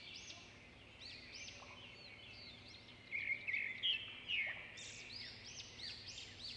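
Birds chirping, a series of short arched chirps, louder about three to four and a half seconds in and repeating quickly near the end.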